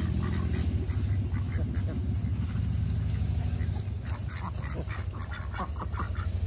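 Hens squawking and clucking with short calls, busiest from about four seconds in, over a steady low rumble.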